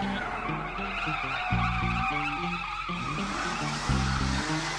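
Cartoon boatmobile running with a squealing, wavering whine, over background music whose bass line steps from note to note.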